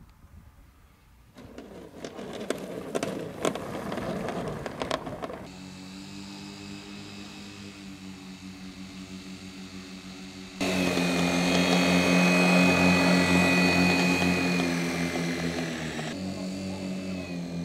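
Radio-controlled model aircraft touching down on grass with a noisy, clattering rush, then its pusher-propeller motor running steadily as it rolls and taxis. About ten seconds in the motor is suddenly louder, with a high whine, and it drops back near the end.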